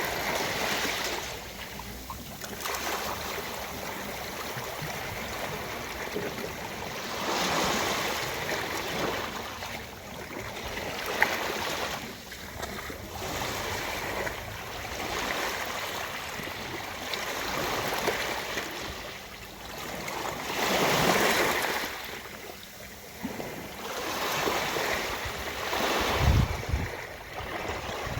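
Ocean waves washing onto a beach, the surf swelling and falling back every four to five seconds.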